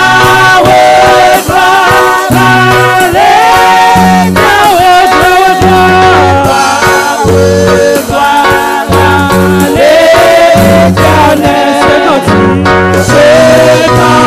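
Gospel worship song: a woman's amplified lead vocal, with held, wavering notes, over instrumental accompaniment with a bass line.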